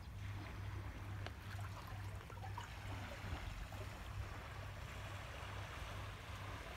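Lake water lapping and trickling among the concrete tetrapods of a breakwater: small steady splashes and gurgles, with a low steady rumble underneath.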